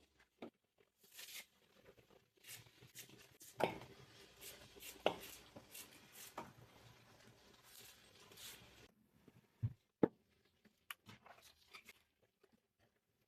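Close-up rustling with scattered sharp clicks and light knocks, the sound of things being handled at close range, busiest in the first two-thirds and then only a few isolated clicks.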